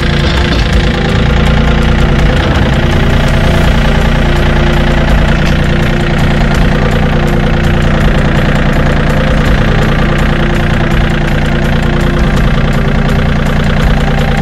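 John Deere 3120 compact tractor's three-cylinder diesel engine running steadily.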